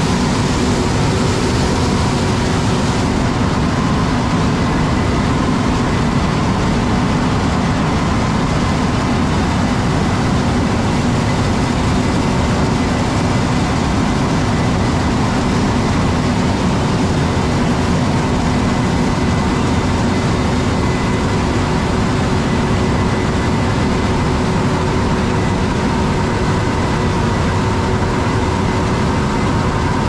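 Combine harvester running steadily while harvesting corn: a constant heavy engine and threshing drone with several held tones over a low rumble.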